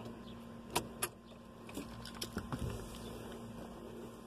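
Several light clicks and knocks of a plastic blower motor and fan-wheel assembly being handled and set down on the car's carpeted floor, over a faint steady hum.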